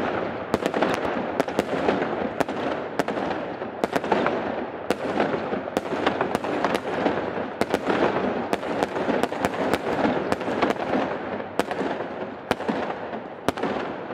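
Fireworks crackling and popping: a dense, continuous crackle with sharp cracks a few times a second, cutting in suddenly.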